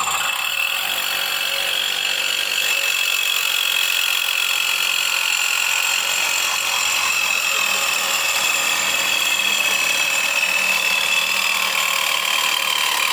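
Reciprocating saw fitted with a Diablo AMPED Demo Demon carbide-tipped demolition blade, running steadily while making a freehand cut. It is a continuous high buzz with a steady whine and no pauses.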